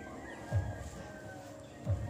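Faint background music with two dull low thumps, one about half a second in and one near the end.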